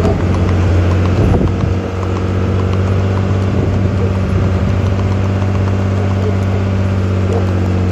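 Vehicle engine running steadily at low, even revs: a constant low hum.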